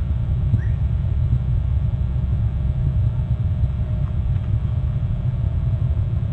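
Steady low rumble of wind buffeting the nest camera's microphone, with a faint short rising chirp about half a second in.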